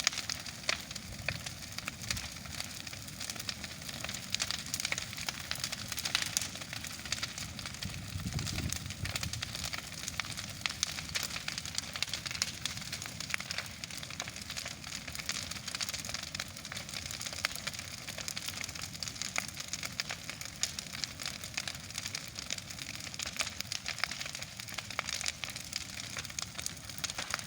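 Bonfire burning: constant crackling with frequent sharp pops over a steady hiss.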